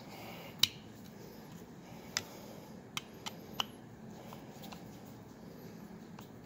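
A handful of sharp, short clicks and taps, the loudest under a second in, as a wire's fork terminal is handled and fitted onto the power terminal screws of a pressure transmitter's terminal block, over faint room hum.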